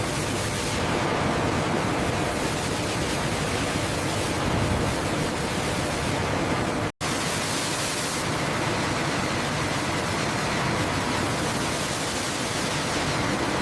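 Steady industrial machinery noise in a plywood factory: a dense, even hiss with low rumble. It cuts out for an instant about seven seconds in, then resumes.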